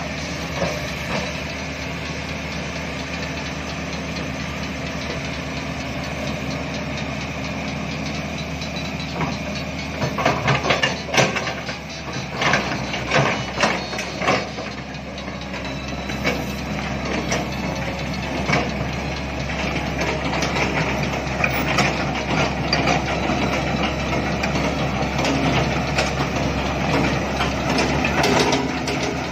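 Heavy diesel engine of a Kobelco SK200 excavator running steadily at work. Bursts of loud knocks and clanks come about ten to fourteen seconds in, with scattered further knocks after that.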